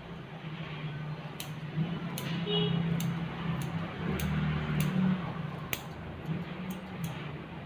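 Grooming scissors snipping hair on a dog's face: a dozen or so sharp snips, about two or three a second, starting a little over a second in. A low steady hum runs underneath.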